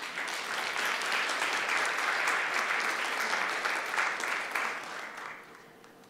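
Audience applauding, many hands clapping together, dying away near the end.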